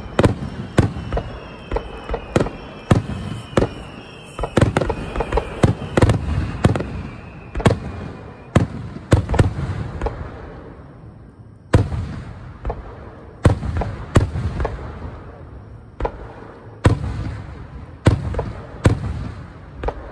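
Aerial firework shells bursting in a rapid, irregular barrage of loud bangs, each trailing off in echo, with thin whistling tones sliding downward through the first several seconds. The bangs let up briefly around the middle, then the barrage starts again.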